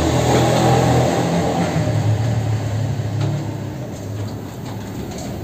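Low, steady engine hum of a motor vehicle, loud at first and fading gradually over a few seconds.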